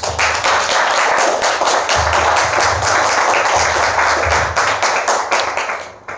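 Audience applauding: many hands clapping at once, fading away near the end.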